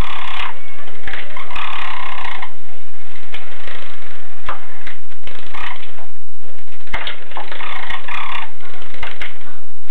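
Java sparrows bathing in a shallow basin of water: repeated short splashes and flicks as they dip and shake. Bursts of chirping calls come at the start, about two seconds in and again near eight seconds.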